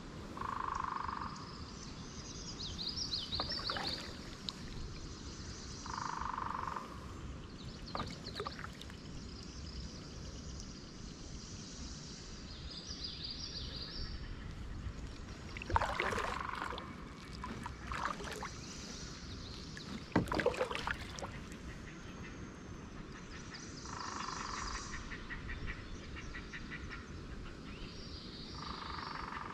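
Still-water wetland ambience: a short call repeated several times, high chirping birdsong, and a few sharp knocks, the loudest just past the middle.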